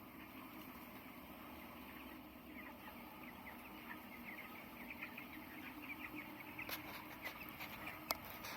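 A flock of young broiler chickens peeping, many short high chirps that grow denser after a couple of seconds, over a steady low hum, with a few sharp clicks near the end.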